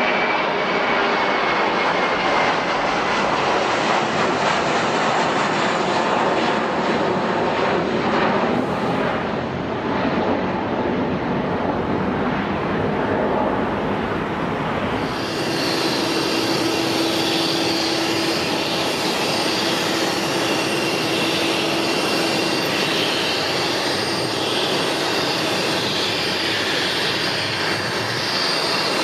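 Airliner jet engines running loud and steady, a dense rush with a faint high whine that falls slightly near the start. About halfway through, the sound changes abruptly to a brighter jet noise with a steady whine on top.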